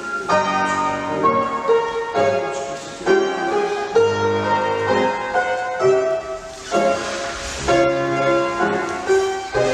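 Piano music in a steady, measured rhythm, with chords and melody notes changing about once a second: ballet-class accompaniment for exercises at the barre.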